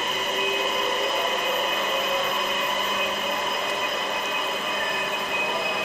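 Öresundståg electric train at an underground platform: a steady electrical whine and hum with several held tones over a rumbling noise, echoing in the tunnel station.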